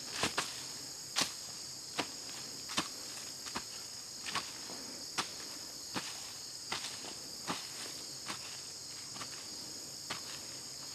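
A hand digging tool chopping into packed soil in steady strokes, a short sharp strike about once a second. Behind it a steady high insect chorus trills.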